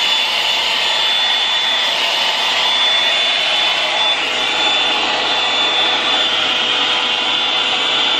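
Bondi Boost hot-air blowout brush running: a steady rush of blown air with a faint, even motor whine.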